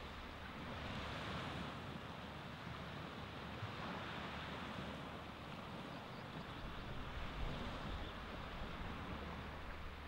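Baltic Sea surf washing onto the beach: a continuous hiss of small waves that swells a few times as waves break, over a low rumble.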